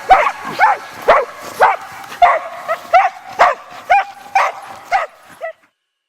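Dog barking repeatedly and excitedly, about two barks a second, cutting off suddenly near the end.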